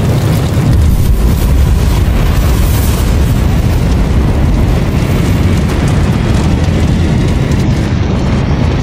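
Loud, steady, deep rumbling roar with a rushing noise above it: a cinematic disaster sound effect for the fiery aftermath of the asteroid impact.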